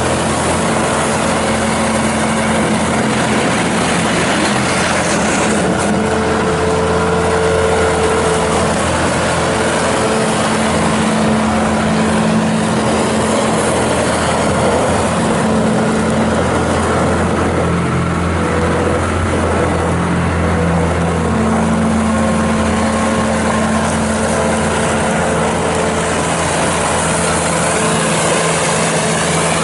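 Bobcat S650 skid steer loader's Kubota V3307 four-cylinder turbo diesel running steadily while the machine is operated. Its note shifts up and down several times as the load changes.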